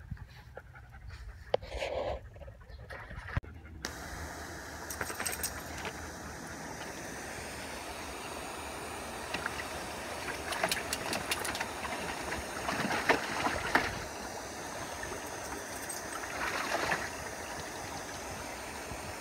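Lawn sprinkler spraying water, a steady hiss that starts suddenly about four seconds in, with a few louder spells of spatter.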